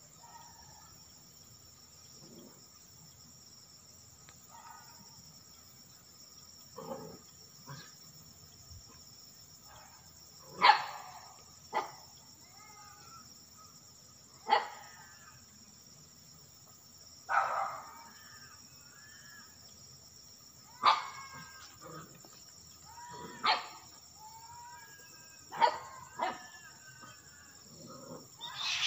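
A dog barking, single sharp barks every few seconds, with faint wavering cries between some of them.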